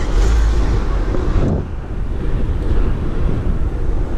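Wind buffeting the microphone as a BMX bike rolls along an asphalt street.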